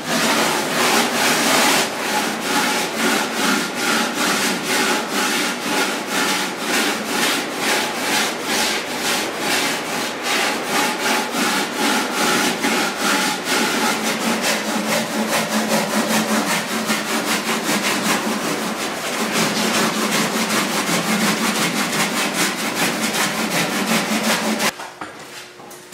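Hand sanding block scraped back and forth over a foam body panel in quick, even strokes, about two to three a second. The strokes stop shortly before the end.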